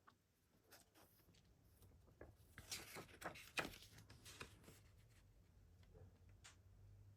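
Faint handling of a CD case and its packaging: scattered light clicks and rustles, busiest a few seconds in, over a low steady hum.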